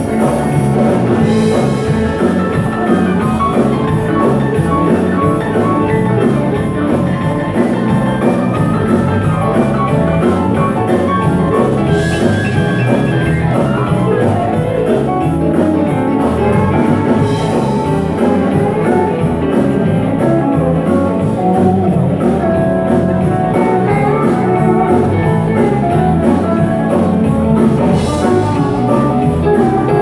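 A live country-rock band playing an upbeat number: electric guitars over a drum kit keeping a steady beat.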